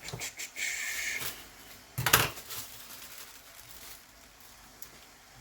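Kitchen handling noises during food preparation: a few clicks and a short rustle, then a loud knock or clatter about two seconds in.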